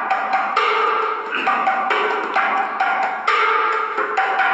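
Two paint buckets played as hand drums, slapped with the palms and fingers in a steady beat of about two strokes a second.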